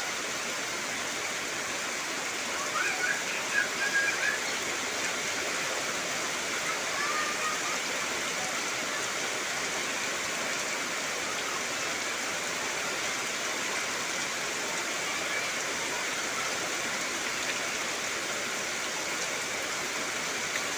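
Heavy rain falling steadily on trees, an even hiss of rain. A few brief pitched calls sound over it about three to four seconds in and again near seven seconds.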